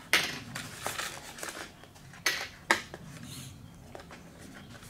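Light clicks and taps of small plastic parts being pushed and twisted off a foam RC airplane and set down on a table, over faint handling rustle, with two sharper clicks about halfway through.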